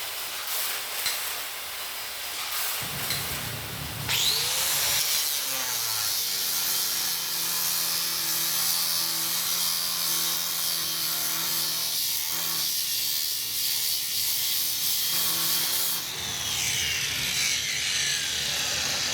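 Angle grinder with a 4.5-inch 36-grit fiber sanding disc: it spins up about four seconds in and grinds a steel weld with a steady motor hum under loud gritty grinding noise. Near the end it is switched off and the pitch falls as it winds down. Before it starts there is a hiss.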